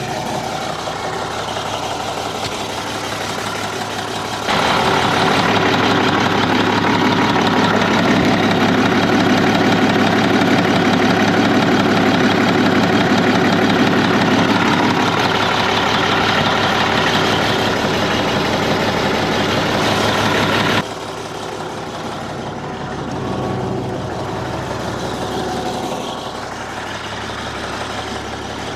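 Case 4690 tractor's diesel engine running steadily. It gets much louder abruptly about four seconds in and drops back abruptly about 21 seconds in.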